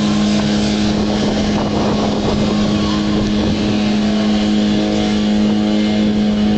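Portable fire-brigade motor pump engine running steadily at high revs, a loud constant hum with an even pitch, feeding the hose lines during the drill.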